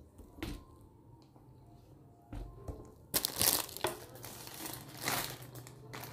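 Crinkling, rustling handling noise in several bursts from about halfway through, loudest just after the midpoint, typical of packaging being handled. A few light knocks come before it, as vegetables are set down on a table.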